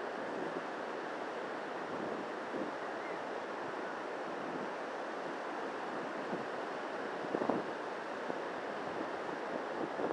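Steady rush of surf breaking on a sandy beach, with wind buffeting the microphone and a brief louder gust about seven and a half seconds in.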